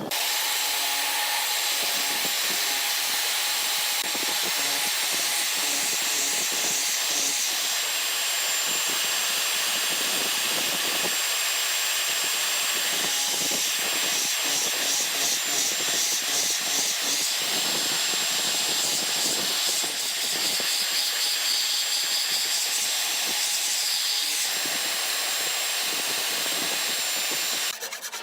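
A high-speed electric woodworking power tool running steadily under load: a constant high motor whine over a dense hiss of cutting or sanding, the whine dipping slightly a few times as the tool is pressed into the wood.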